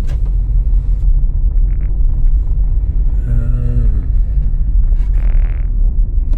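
Low, steady rumble of a car on the move, heard from inside the cabin. A brief mumbled voice comes about halfway through, and a short hiss comes near the end.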